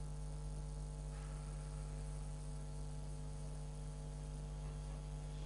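Steady mains hum with a stack of unchanging tones above it and a faint hiss.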